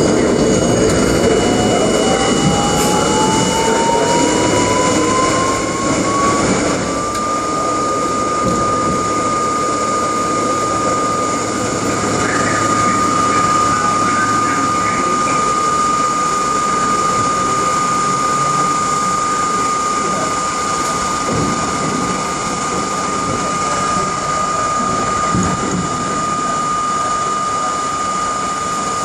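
R32 subway train running on the rails: a whine rises in pitch over the first several seconds, then holds at one steady pitch over a continuous rumble of wheels on track, as the train picks up speed and then cruises.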